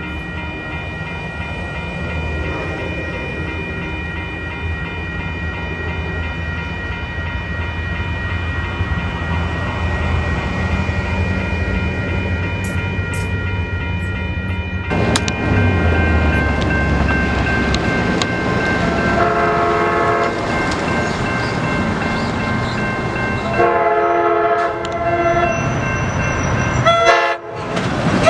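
A train approaching, its low rumble growing steadily louder, with the locomotive's air horn sounding several blasts in the last ten seconds.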